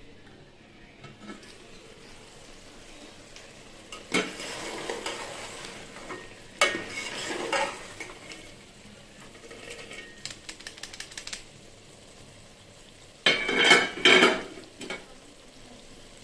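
A cooking utensil stirring and scraping chicken and capsicum in a pan over a low sizzle. There are several scraping bursts with quick clinks in between, and the loudest comes near the end.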